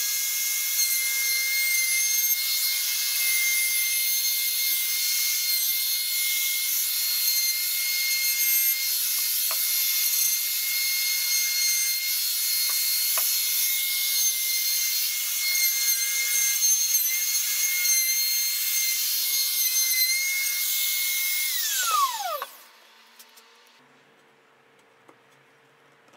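Bosch compact router running at high speed as it cuts along the edge of a Douglas fir frame: a steady high whine. About 22 seconds in it is switched off and the whine falls away as the motor spins down.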